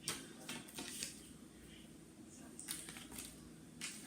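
Faint handling noises: a few light clicks and rustles of items and packaging being moved about, spaced a second or so apart.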